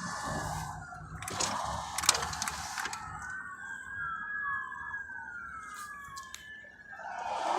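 Emergency vehicle sirens wailing, with several slow rising-and-falling sweeps overlapping one another. A low rumble sits under the first couple of seconds.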